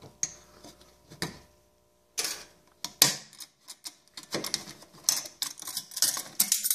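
Irregular metallic clicks and clinks as a Vanjen-style tool-less clamp is worked loose and off the ridged joint of polished aluminum intercooler piping. The clicks come thicker and faster in the last few seconds.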